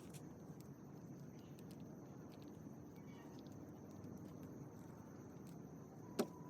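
Faint outdoor ambience at night: a steady low rumble and a thin, steady high-pitched tone, with scattered small ticks and one sharp click near the end.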